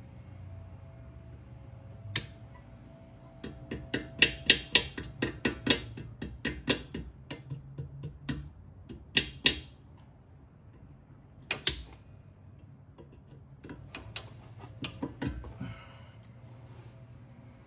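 Hand tools working on a car's front suspension: sharp metallic clicks, a quick run of them several per second through the first half, a single click past the middle and a shorter cluster later.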